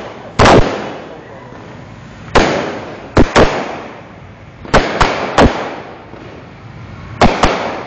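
Fireworks exploding: about nine sharp bangs at uneven intervals, several in quick pairs, each trailing off in a short echo.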